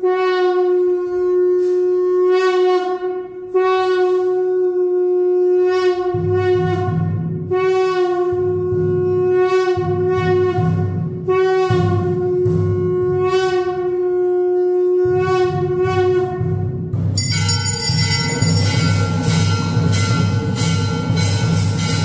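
A conch shell (shankh) blown in a series of long, steady blasts at one pitch. About six seconds in, a low rhythmic drumbeat joins it. After about seventeen seconds the conch stops and temple bells ring over the drum.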